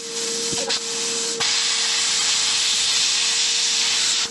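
Handheld plasma cutter cutting into a steel axle near the knuckle: a loud, steady hiss of the cutting arc, softer for the first second or so, then full, and cutting off abruptly near the end as the trigger is released. A steady hum runs underneath.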